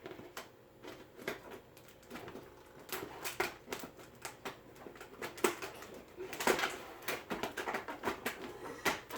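Irregular light clicks and rustling of hands handling plastic and cardboard packaging while Nerf Mega foam darts are taken out of the box.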